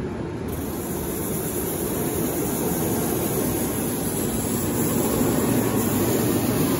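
A steady, low rushing noise with no clear pitch, growing slightly louder.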